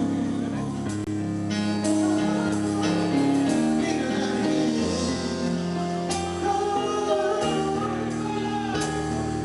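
A man singing live into a microphone over band accompaniment, with chords held under a drawn-out, wavering vocal line.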